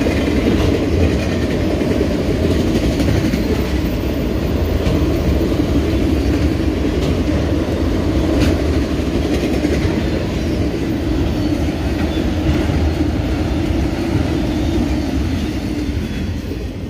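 Autorack freight cars rolling past at speed: a steady rumble of steel wheels on the rail, with occasional clicks of wheels over the joints. The sound drops off near the end as the last car goes by.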